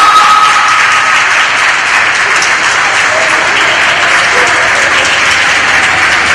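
Audience applauding. A held note of the skating music fades out about a second in.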